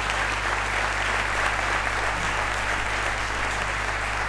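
Audience applauding steadily, with a low electrical hum underneath.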